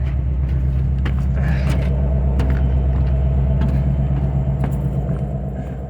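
An EMD SD70ACe locomotive's 16-cylinder 710 diesel turning over with a steady low drone that eases slightly near the end. This is a failed auto-start attempt that does not sound good, which the owner puts down to the electric fuel pump not working.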